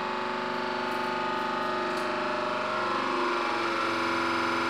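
40-ton hydraulic press running under load as it crushes a PLA 3D-printed part flat: a steady whine with many overtones, its tone changing a little about three and a half seconds in.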